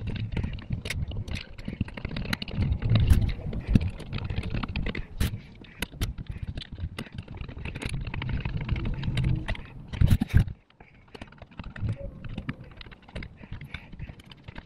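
Small metallic clicks, taps and scrapes from a Holley 94 carburetor being handled on a workbench while its top cover screws are set with a screwdriver, with dull knocks of the carb body being moved; a louder knock comes about ten seconds in.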